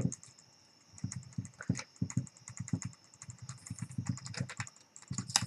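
Hand screwdriver backing out small screws from a handheld multimeter's circuit board: a run of small clicks, scrapes and creaks of the tool in the screw heads and against the plastic case, with a sharper click at the start and another near the end.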